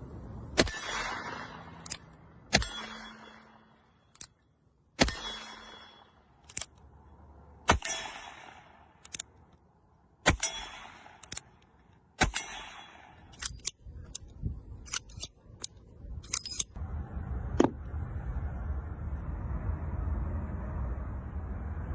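Gunshots fired one at a time: about six loud shots two to three seconds apart, each trailing off in an echo, with lighter cracks between them. The cracks come faster toward the end, and a steady low rumble follows.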